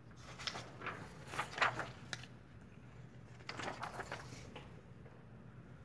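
Sheets of paper being handled and slid on a desk: a series of short rustling, scraping sounds.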